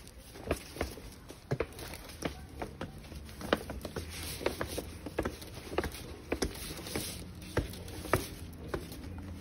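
Footsteps on a wet stone floor, short sharp steps at about two a second, over a faint steady hiss.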